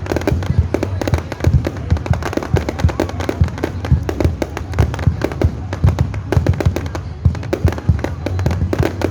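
A fireworks display going off in rapid, continuous bangs and crackles, with music playing underneath.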